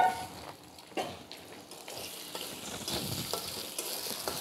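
An egg frying in hot oil in a steel wok, sizzling more and more strongly after about two seconds, as a metal spatula stirs and scrapes it in the pan. There is a brief sharp sound at the very start.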